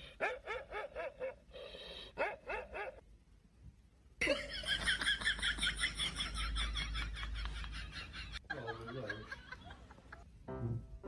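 Laughter in rapid repeated bursts, loudest in a long stretch from about four seconds in to past eight seconds.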